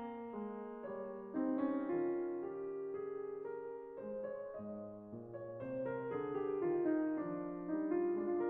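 Background piano music: held notes and chords changing every half second or so.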